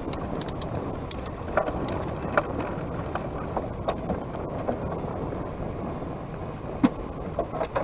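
Steady rush of river water around a wooden boat, with wind on the microphone, broken by a few sharp clicks and knocks from the fishing tackle and the boat. The loudest click comes about seven seconds in.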